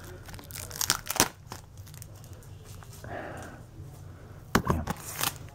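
Plastic shrink wrap crinkling and tearing as it is peeled off a Blu-ray case, in irregular crackles and a few sharp snaps.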